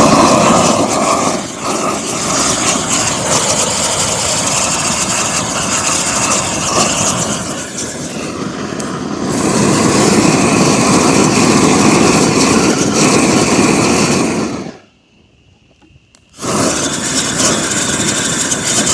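Propane torch flame blowing into a drilled, oil-soaked stump with a loud, steady rushing hiss. It cuts off suddenly about 15 seconds in and comes back on a second and a half later.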